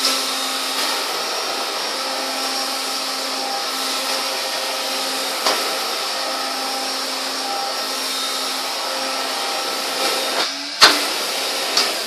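1970s Hoover Constellation floating vacuum cleaner running smoothly with a steady motor whine and airflow, with a few light knocks. Near the end a sharp click, after which the motor begins to wind down.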